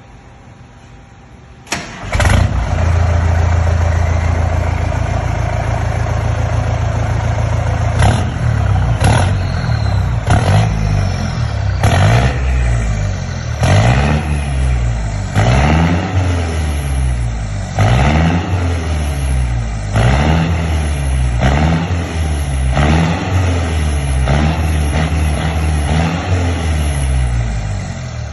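Ford F-1000 pickup engine cranking and catching about two seconds in, idling steadily, then revved in short blips every couple of seconds, each rising and falling back to idle.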